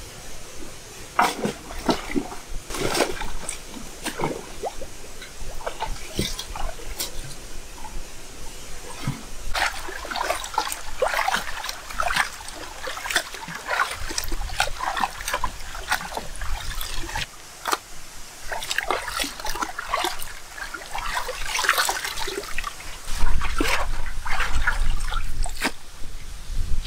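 Raw chicken pieces being washed by hand in a steel basin of water: irregular splashing, sloshing and squelching of meat against water and metal. A low rumble joins in near the end.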